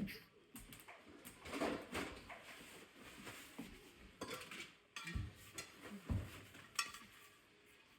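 A cooking spoon scraping and knocking against a pot as jollof rice is stirred and mixed, in irregular strokes with a few sharper knocks.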